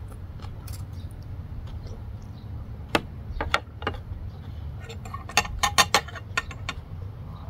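Metal fork clinking and tapping against a small glass dish and a plate while eating: a few single clicks, then a quick run of clinks about five to six seconds in, over a low steady rumble.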